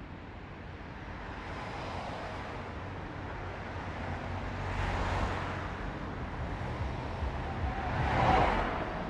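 Urban road traffic with a steady low rumble, and two vehicles swishing past, one about five seconds in and a louder one near the end.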